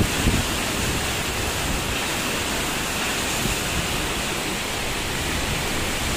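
Cyclone wind and heavy rain making a steady, unbroken rushing hiss.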